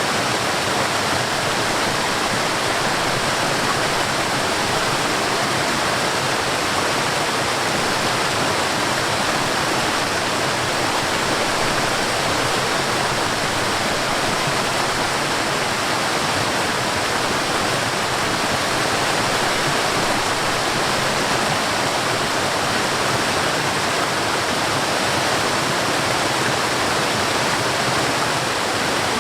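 Mountain stream or waterfall water rushing, a steady, even rush with no breaks or changes.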